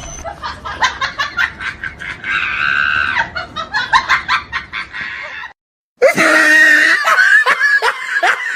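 Two laugh sound effects in a row: a high-pitched, rapid laugh, then, after a brief break about five and a half seconds in, a different laugh in repeated bursts that each slide down in pitch.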